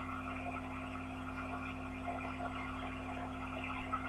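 Steady electrical mains hum under an even, steady hiss of car wash noise played back through a phone's small speaker.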